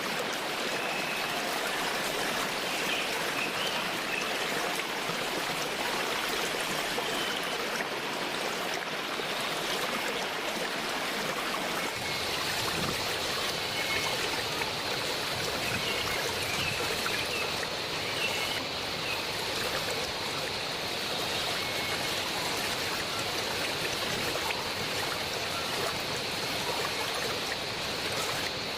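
Waterfall water rushing and splashing in a steady, even flow.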